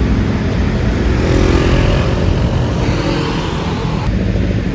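Street traffic passing close by: a motor vehicle's engine swells and fades about halfway through, over a steady low rumble.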